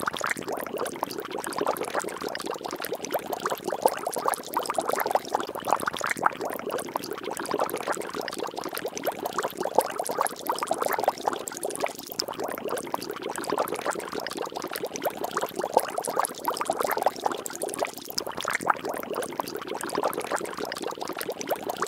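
Water bubbling and splashing without a break, a dense run of small pops and plops.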